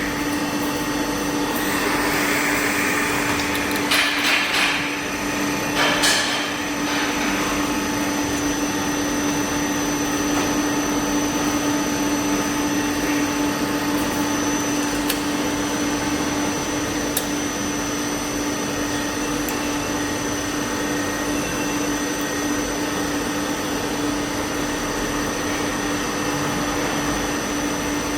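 Automatic hollow-pipe welding machine for jewellery running: a steady machine drone with a constant low hum and a faint high whine. A few short hissing bursts come in the first six seconds.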